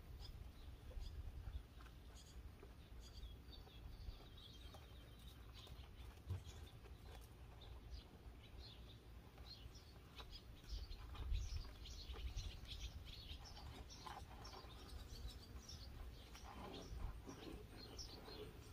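Small birds chirping, many short calls that grow busier in the second half, over a faint low rumble.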